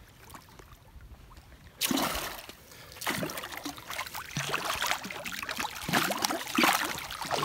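A large northern pike thrashing at the surface of shallow lake water, throwing up loud splashes in repeated bursts that start suddenly about two seconds in.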